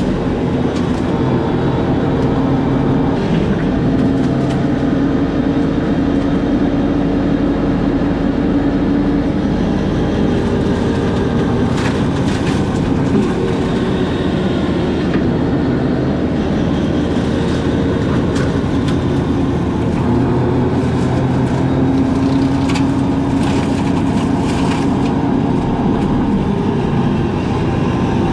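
Engine of a brush-cutting machine running steadily under load as it cuts brush, its pitch rising and falling a little, with scattered sharp clicks and snaps.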